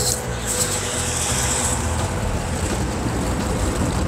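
1955 Chevrolet sedan's engine running with a steady low rumble as the car drives slowly past and pulls away.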